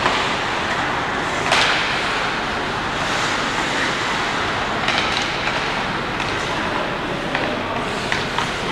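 Ice hockey play in a rink: a steady hiss of rink noise with a few sharp clacks, about three, of sticks and puck.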